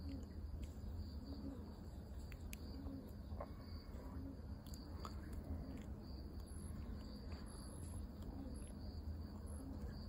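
Faint outdoor background: a steady low rumble with scattered faint high chirps and a few light ticks.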